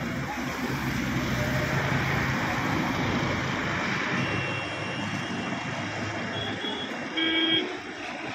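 Passenger train pulling slowly out of a station: steady running noise of the coaches on the track with a low hum, and a short, loud horn toot about seven seconds in.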